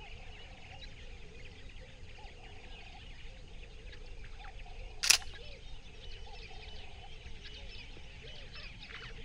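Wild birds chirping and calling in the background, with a single sharp camera shutter click about five seconds in.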